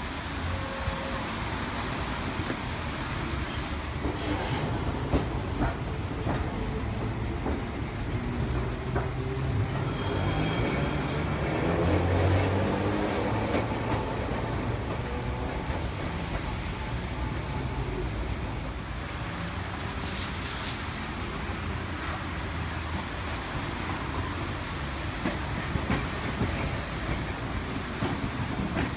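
Vintage tram car 3005, a restored former Tobu Nikko line streetcar, running on street tracks: its wheels rumble and click over the rail joints, with wheel squeal on the rails. The sound swells about twelve seconds in as the car passes.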